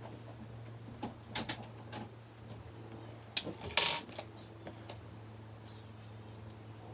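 Small clicks and knocks of makeup items being picked up and set down on a desk, with a short scrape about four seconds in, over a steady low hum.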